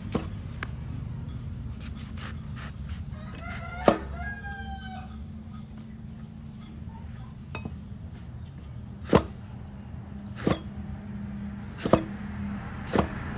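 Kitchen knife chopping through a large cucumber onto a wooden cutting board: sharp knocks at uneven intervals, most of them in the second half. A rooster crows in the background about four seconds in.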